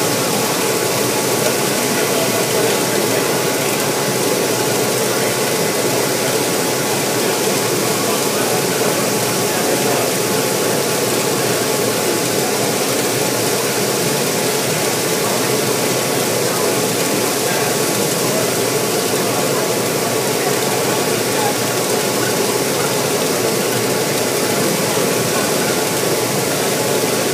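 HTC concrete floor grinder running steadily on a concrete slab: an even, unbroken grinding noise with a few faint steady whining tones.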